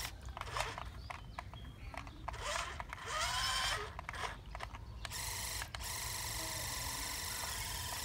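Small electric gear motor of a homemade remote-control toy fire truck running with a steady whine. The whine drops out for about five seconds near the start, while clicks and short squeaky chirps are heard, then resumes about five seconds in.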